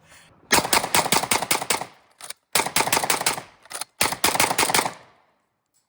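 Rapid gunfire in three quick bursts of sharp bangs, about eight a second, stopping about five seconds in.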